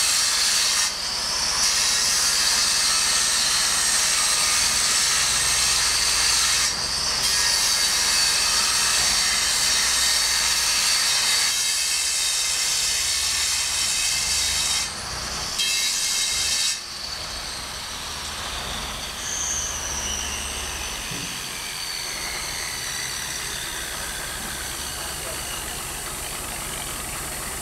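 Electric angle grinder cutting into a marble block: a loud, steady hissing grind, broken by brief pauses about a second in, about seven seconds in, and again around fifteen seconds. After about seventeen seconds the cutting stops and a quieter whine carries on, slowly falling in pitch.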